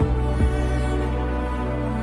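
Background music: a slow, soft instrumental passage with sustained low notes, the introduction to a pop song.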